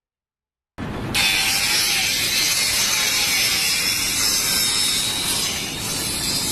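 A loud, steady, hissing mechanical noise that starts suddenly about a second in, after near silence.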